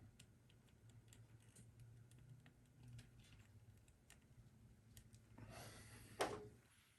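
Near silence with faint scattered small clicks from wiring connectors and wires being handled, and a short soft rush of noise near the end.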